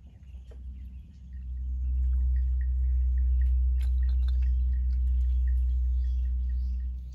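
Outdoor ambience at a weedy pond: a steady low rumble, with a run of faint, quick chirps partway through and a few sharp clicks.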